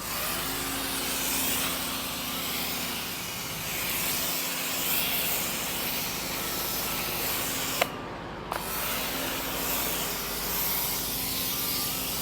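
Bosch Aquatak 130 electric pressure washer spraying through a foam cannon: a steady loud spray hiss over the pump motor's hum. The spray cuts out for about half a second, with a click at each edge, about eight seconds in, then resumes.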